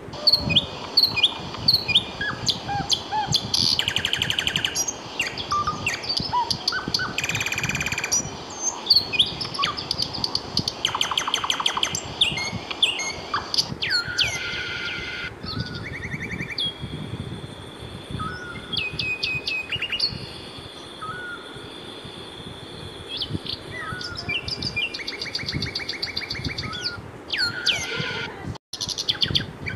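A chorus of many birds singing and chirping together: overlapping whistles, rapid trills and short chirps. It drops out for an instant near the end.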